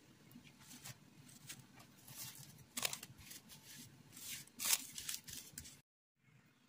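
Plastic cling film crinkling and rustling as it is pulled and stretched over a glass bowl, in a string of irregular crackles, the loudest about three seconds in and again near five seconds.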